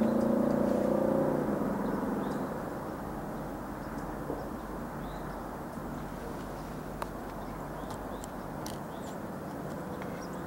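A motor vehicle's engine running at a steady pitch, then fading away over the first two seconds. After that, a steady outdoor background with a few faint chirps and clicks.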